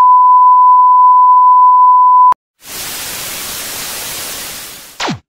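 Television test-pattern sound effect. A loud steady test-tone beep, the reference tone that goes with colour bars, cuts off with a click a little over two seconds in. After a short pause comes TV static hiss for about two and a half seconds, which ends in a quick falling tone.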